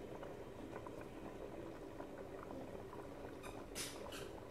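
Chicken pulao liquid boiling in an aluminium pot, with bubbles popping in small steady ticks. Two brief hisses come near the end.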